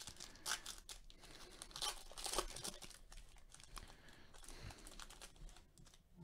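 A Topps 2019 Series 1 baseball card pack's foil wrapper being torn open by hand, crinkling, with short rips about half a second in and again around two seconds in, then quieter rustling.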